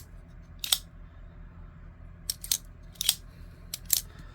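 Folding knife with an axis lock being flicked open and shut: sharp metallic clicks of the blade snapping into place, about seven, some in quick pairs.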